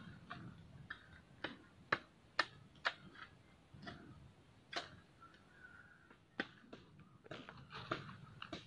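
Dry sticks and twigs snapping and crackling, a sharp crack every half second to second or so, at an irregular pace.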